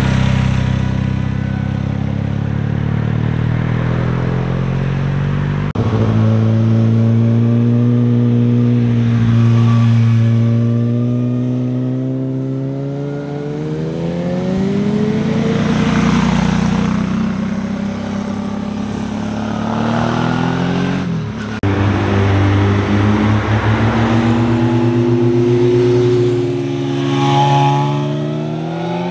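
Motorcycle engines passing one after another through bends, their pitch rising and falling as the riders open and close the throttle. The sound switches abruptly from one bike to the next a few times.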